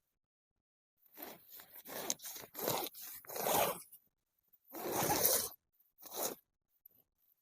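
A zipper being pulled in a run of short strokes, then two more pulls.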